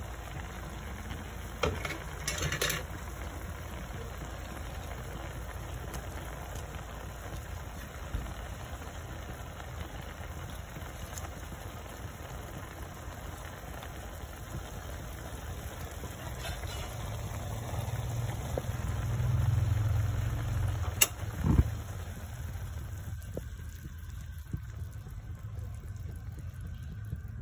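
Squid adobo simmering in a pot, the sauce bubbling over a steady low rumble. A few sharp clicks come about two seconds in and again about three quarters of the way through, and the rumble swells briefly just before the later click.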